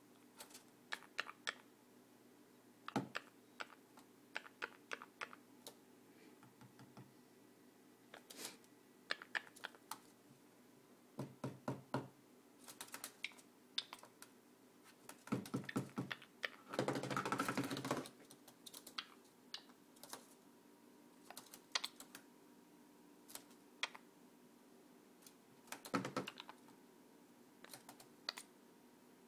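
Quaker parrot (monk parakeet) making sharp clicking noises in irregular bursts, a few clicks at a time with pauses between. About halfway through comes a denser, noisier sound lasting about a second.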